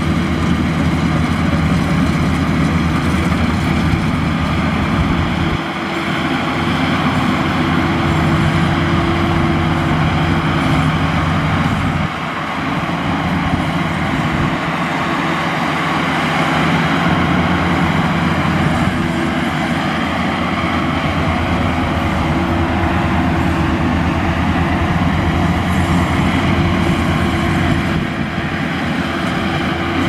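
Maxxi Bimo 102L rice combine harvester running steadily under load while cutting and threshing rice, a loud engine hum with the machinery's rattle on top. The level dips briefly a few times.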